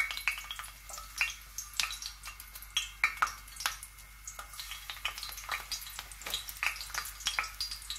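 Finely chopped garlic sizzling in hot oil on a tawa, with a steady hiss and many irregular crackles and pops: the garlic frying for a tempering (baghar).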